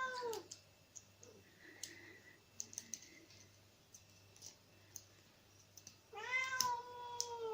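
Domestic cat meowing twice: one meow trailing off at the start and a longer one about six seconds in. Between them, faint small metallic clicks of picks working inside a padlock.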